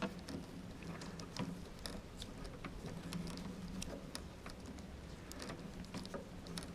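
Electrical tape being pulled off the roll and wound around a coax connector: faint, irregular crackles and ticks.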